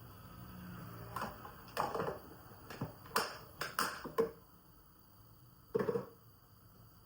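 Light clicks and knocks of kitchen items being handled: about ten in quick succession, then one more near the end.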